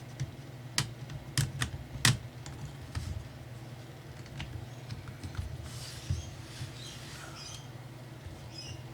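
Sharp plastic clicks and taps from a Dell Latitude E6420 laptop's casing and keyboard being handled and pried apart: four louder clicks in the first two seconds, then scattered fainter ticks.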